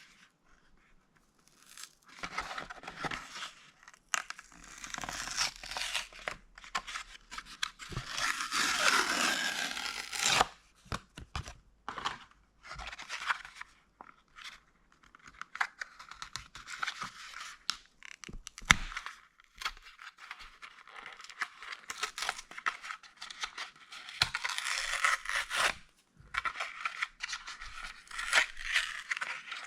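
Toy car packaging being torn open by hand: tearing and crinkling of cardboard and plastic in uneven spells, loudest about eight to ten seconds in, with scrapes and small clicks between.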